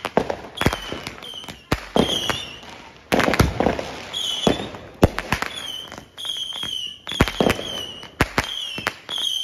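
A consumer fireworks cake firing: an irregular run of sharp bangs, about one or two a second, with short high whistles between them.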